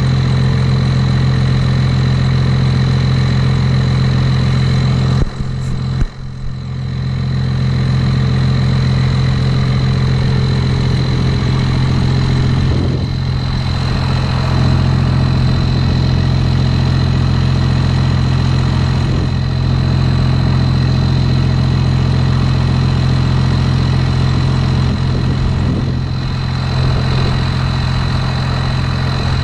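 Pickup truck engine idling steadily, a constant low hum that dips briefly about five seconds in.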